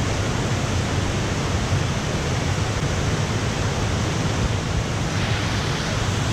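FlowRider wave machine's thin, fast sheet of pumped water rushing steadily up and over the ride surface, heard close up as a loud, even roar of water.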